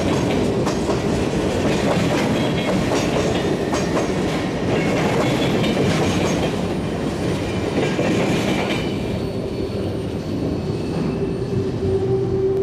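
Freight train of empty centerbeam flatcars rolling past, wheels clicking over the rail joints with some light squeal. The noise drops away about nine seconds in as the last car passes, and a steady low hum comes in near the end.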